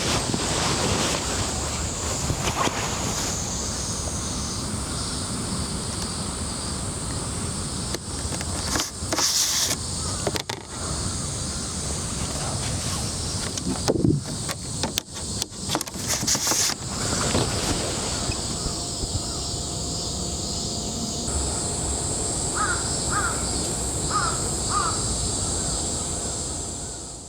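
Outdoor city ambience with a steady high hiss and several abrupt shifts where the scene cuts. A few knocks come in the middle, and near the end a crow caws several times in quick pairs.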